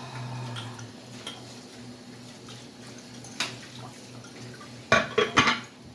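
Dishes and cutlery being hand-washed in a kitchen sink: a few light clinks, then a burst of loud clattering about five seconds in, with a faint trickle of water.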